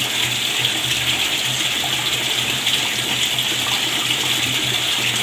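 Tap water running steadily into a plastic vinegar bottle, filling it.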